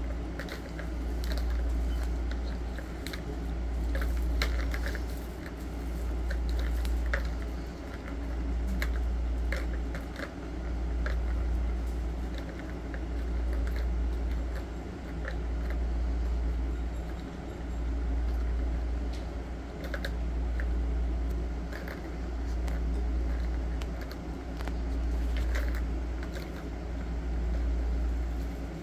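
Light plastic clicks and rattles from cats pawing at a tiered ball-track toy, scattered and irregular, over a low rumble that swells and fades about every two seconds.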